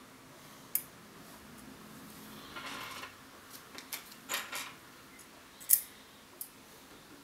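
Small metal and plastic CPU-cooler mounting parts being handled, giving sharp clicks and clinks: one about a second in, a cluster around four seconds and a louder one near six seconds, with a short rustle in between.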